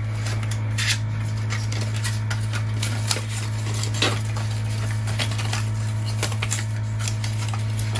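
Packaging being handled while accessories are unpacked from a box: irregular clicks, taps and rustles over a steady low hum.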